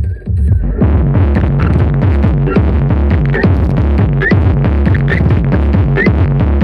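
Very loud electronic dance music with a heavy, pounding bass beat, played through a giant parade sound-horeg speaker rig (the V10 system). The fuller, brighter part of the track comes in about a second in.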